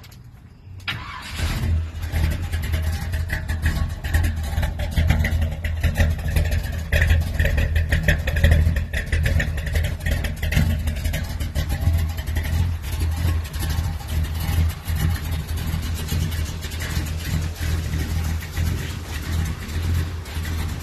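Chevy 406 small-block V8, exhaust running through headers and chamber mufflers, fires up about a second in and keeps running loud, with a deep rumble and uneven, pulsing loudness.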